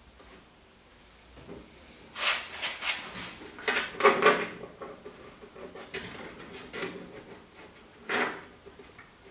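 Hand work on a truck's door handle and its gasket: several short bouts of scraping and rubbing with light clatter, as the parts are cleaned and fitted.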